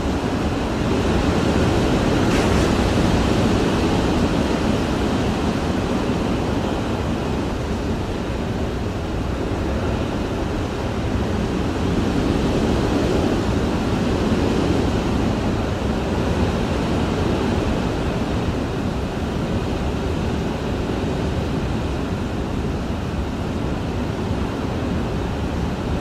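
Hurricane wind heard from inside a house: a steady deep rush that swells into stronger gusts twice.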